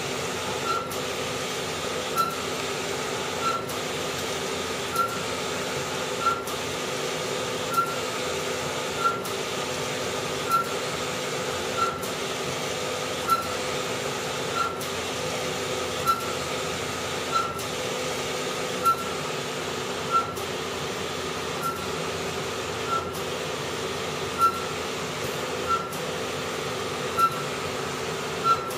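Wide-format inkjet printer printing sublimation paper: a steady motor hum as the print-head carriage shuttles back and forth, with a short click about every second and a half as each pass ends.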